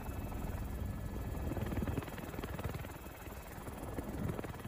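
Helicopter noise from inside the cabin: a steady low rumble with uneven buffeting.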